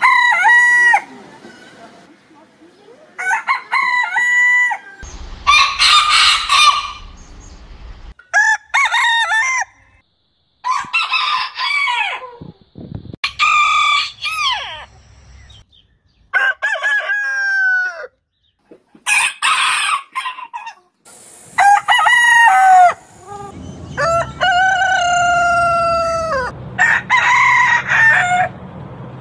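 Roosters crowing one after another, about ten separate crows from different birds, each lasting a second or two, with abrupt cuts between them.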